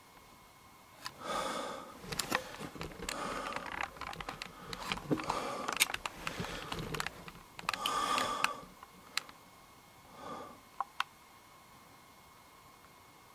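A run of irregular rustling and scraping noises mixed with sharp clicks, then a short rustle and a couple of single clicks near the end: close handling and movement noise.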